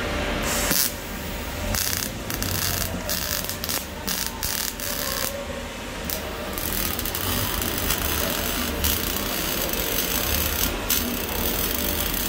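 Electric welding arc crackling in short runs that start and stop as tack welds are laid on a steel pipe joint.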